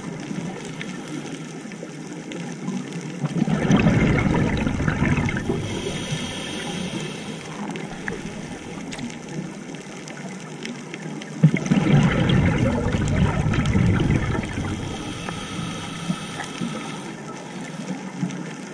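Scuba diver breathing through a regulator underwater: two long bursts of exhaled bubbles gurgling, the first a few seconds in and the second just past the middle, with a fainter hiss between them.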